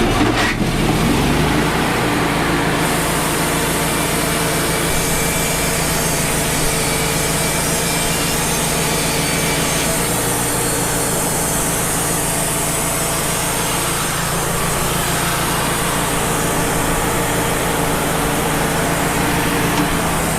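Wood-Mizer LT35 HD portable band sawmill cutting along an eastern red cedar log. Its engine revs up in the first second or so, then runs steadily under load while the band blade saws through the wood.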